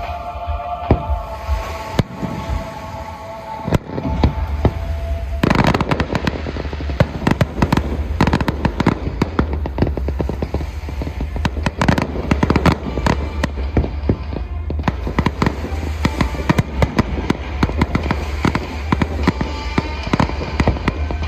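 Aerial fireworks display: repeated bangs and crackling of bursting shells, turning much denser and more continuous about five seconds in.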